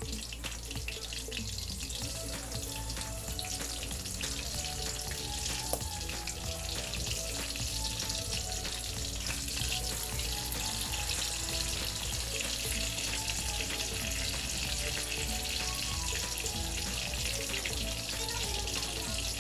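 Chicken burger patties frying in hot oil, a steady sizzle with dense crackles that thickens about halfway through. Faint background music with a simple melody plays underneath.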